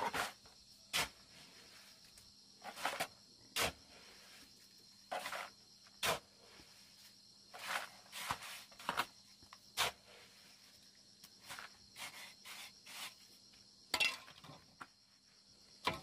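Shovel scraping into a heap of damp sand-and-cement mortar and tipping it into a plastic bucket, in short separate scrapes that come about once a second at times, with pauses between. A steady high insect drone runs behind.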